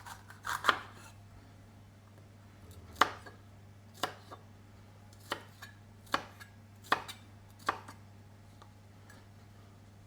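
Knife cutting red and green bell peppers on a chopping board: about nine sharp knocks of the blade hitting the board, spaced unevenly, mostly about a second apart, with a quick pair at the start.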